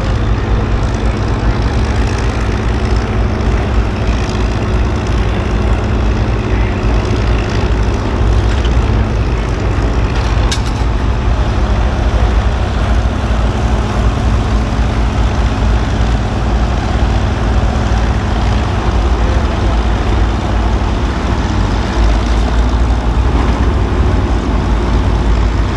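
A large engine running steadily with a deep, even hum.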